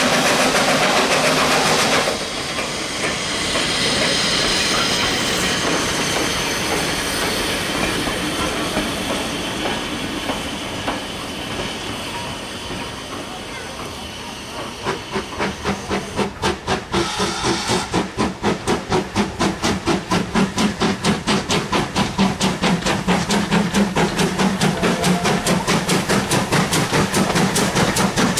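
Steam train noise with a steady hiss that fades slowly. Then, from about halfway, the fast even exhaust beats of a Great Western steam tender engine working a passenger train, about three beats a second, growing louder as it comes near.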